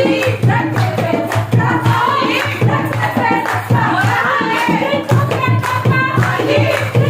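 A song: a voice singing over a rhythmic beat, with a steady pulsing bass and regular sharp percussive strokes.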